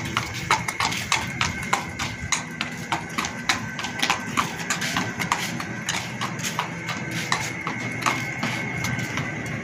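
A horse's hooves clip-clopping at a walk on hard ground, about two to three hoofbeats a second. A steady high tone runs underneath.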